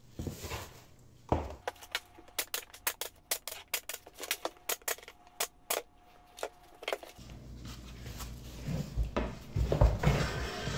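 Pneumatic pin nailer firing pins into a wooden toe kick strip in quick succession: a rapid series of sharp clicks, about five a second. Rustling and low knocks follow near the end.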